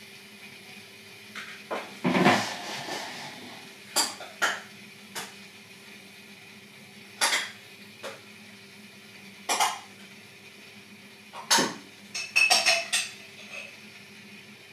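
Kitchenware clinking and knocking: about a dozen sharp, irregular strikes of dishes and cutlery, with a heavier clatter about two seconds in and a quick run of clinks near the end. A faint steady hum sits underneath.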